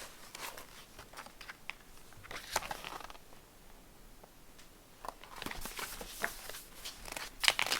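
Faint rustling and scattered small clicks of paper being handled, as a picture book's pages are turned; it goes quiet for a moment in the middle and picks up again after about five seconds.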